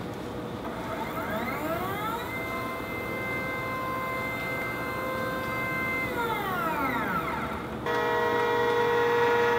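Stepper motor on an aluminium-extrusion camera gantry whining as it moves: the pitch rises as it speeds up, holds steady while it travels, then falls as it slows to a stop. Near the end a louder, steady whine of several tones cuts in suddenly.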